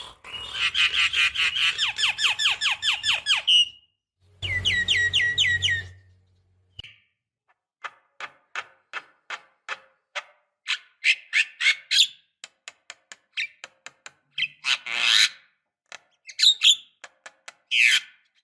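Javan myna calling: a fast rattling run of repeated falling notes for the first few seconds, a shorter run soon after, then scattered clicks and short harsh calls with a few louder calls near the end.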